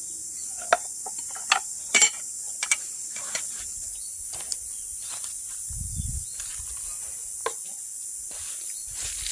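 Steady high-pitched insect chorus, with scattered sharp clicks and knocks over it and a brief low rumble about six seconds in.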